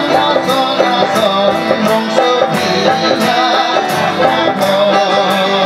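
A man singing into a microphone over amplified backing music with a steady beat of about two strokes a second.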